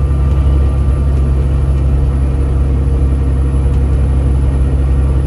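Semi truck's diesel engine and drivetrain running steadily on the road, heard from inside the cab: a loud, even low rumble with a faint constant whine above it.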